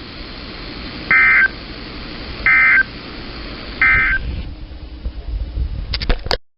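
NOAA Weather Radio SAME end-of-message code: three short, loud bursts of rapid two-tone digital data, about 1.4 seconds apart, sent over the receiver's hiss to mark the end of the severe thunderstorm warning. A few sharp clicks come near the end, and then the sound cuts off.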